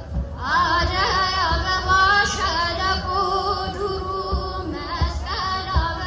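Ethiopian Orthodox church choir singing a hymn in wavering voices, with deep kebero drum strikes in the second half.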